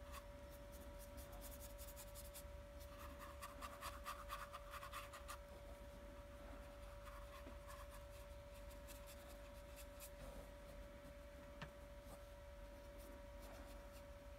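Faint scratchy strokes of a fine paintbrush working paint onto a small stretched canvas, busiest a few seconds in, over a steady faint hum.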